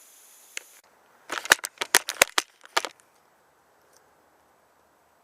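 A quick run of about ten sharp clicks and clacks, packed into less than two seconds starting about a second in.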